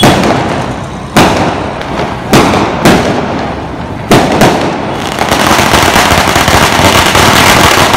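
Fireworks: about six sharp bangs of aerial shells and firecrackers going off in the first four and a half seconds, then a continuous loud hissing spray from a ground firework shooting sparks, starting about five seconds in.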